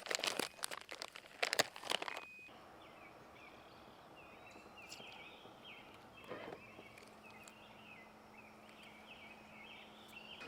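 Several sharp knocks and rattles in the first two seconds, then quiet open-air background with a bird calling in short repeated chirps. A faint steady low hum comes in about six seconds in.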